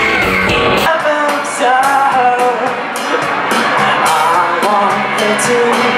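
Live rock band playing: a sung vocal over electric guitar and drums with cymbal hits. The deep bass drops away about a second in.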